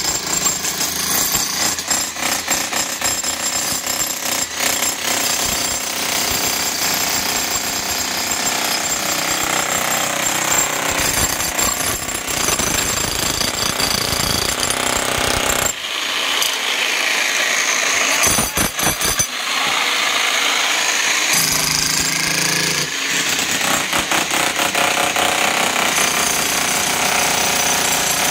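Electric demolition hammer chiselling into reinforced concrete, a rapid, continuous hammering that runs on with only small changes in tone as the bit is worked along the slab.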